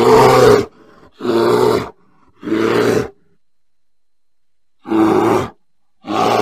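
A bear growling in a series of short, pitched calls, each about half a second long, with a longer pause in the middle.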